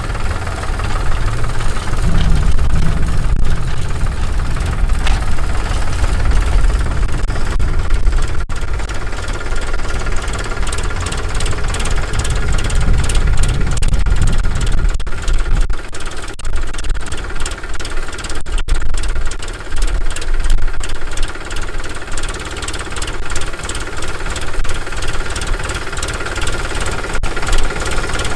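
Powertrac 439 Plus tractor's three-cylinder diesel engine running steadily as the tractor pulls a groundnut digger through the field under load.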